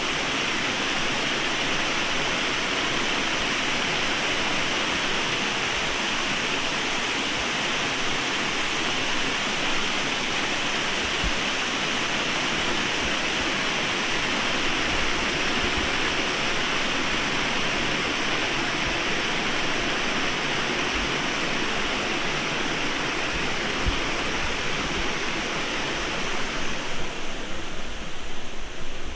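Water of a small river waterfall pouring over rocks into a pool, a steady rushing hiss. Near the end the rush thins and turns uneven.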